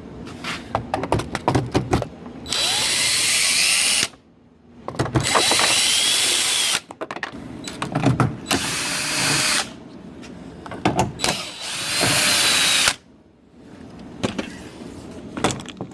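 DeWalt cordless drill with a 10 mm socket backing out screws, running in three spurts of one to two seconds each, its whine rising and falling in pitch within a run. Clicks and knocks of handling come between the runs.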